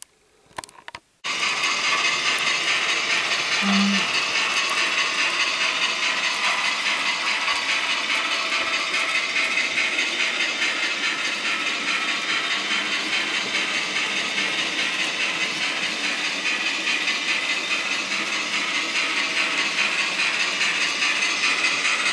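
N gauge model trains running on the layout: the steady mechanical whir of their small motors and wheels on the rails, starting suddenly about a second in.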